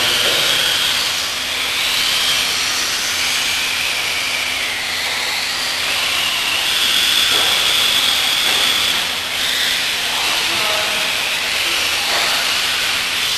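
Several electric radio-controlled off-road buggies racing: the high whine of their motors and gears rising and falling with throttle, over a steady hiss.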